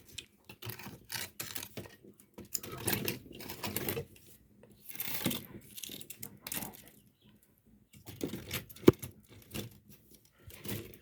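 Pieces of firewood being handled and pushed into a cooking fire: irregular wooden knocks, clatters and rustling, with one sharp knock about nine seconds in.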